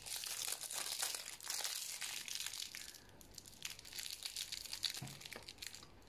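Candy wrapper crinkling as a sweet is unwrapped by hand, dense for about the first three seconds, then thinning to scattered crackles.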